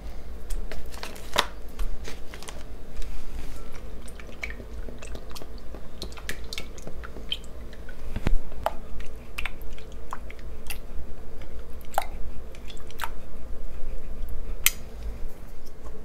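Close-up kitchen prep sounds of raw chicken tenders being handled in a glass bowl and milk poured over them from a carton. It comes as a scattered run of small wet clicks and taps, with one sharper knock about eight seconds in, over a steady low hum.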